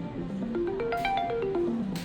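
Samsung Galaxy phone ringtone playing. It is a short melody of quick notes that step upward and then back down, looping about every two seconds.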